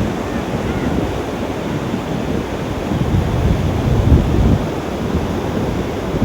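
Ocean surf breaking and washing up the beach in a steady rush, with wind buffeting the microphone in low gusts.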